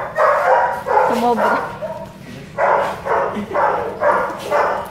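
Belgian Malinois barking in quick runs, about two barks a second, with a pause of about a second between the runs.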